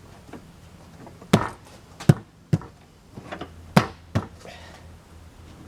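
Tools knocking against a tire and rim while working a stiff 6-ply tire's bead onto the rim on a manual tire changer: about five sharp knocks at uneven intervals with lighter taps between.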